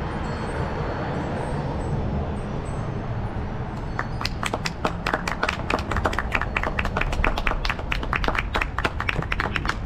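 Steady low street rumble, then about four seconds in a few people start clapping, irregular separate claps that carry on to the end.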